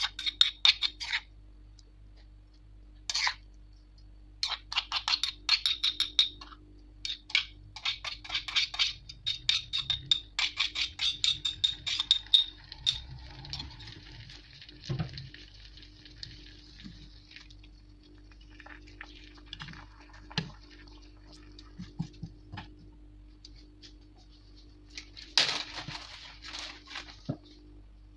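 A metal spoon scraping and tapping chili paste out of a mortar, in runs of quick clicking strokes over the first twelve seconds. The paste then sizzles faintly in a hot frying pan, with scattered taps and one sharp clatter near the end.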